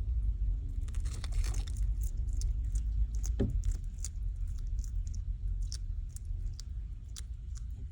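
Bearded dragon biting and crunching mealworms: irregular small crisp clicks over a steady low rumble.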